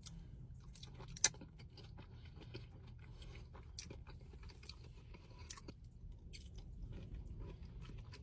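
A person chewing a mouthful of seafood boil, with many small soft clicks throughout and one sharper bite about a second in.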